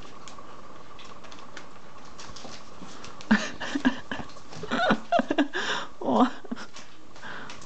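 Young puppies whining and yipping in a short flurry from about three seconds in, several high cries that bend up and down in pitch. Around them is a soft scrabbling of paws on newspaper and a faint steady hum.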